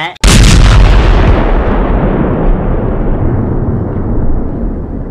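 A sudden, very loud blast of noise with a deep rumble, starting about a quarter-second in. Its hiss slowly dulls and fades over the following seconds.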